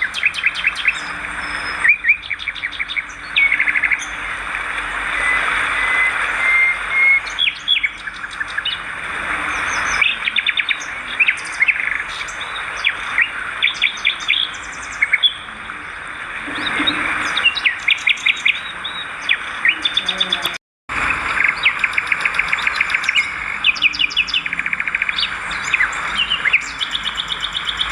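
A flock of swiftlets twittering and chirping densely, with rapid rattling trains of clicks, broken by a brief drop-out about three quarters of the way through.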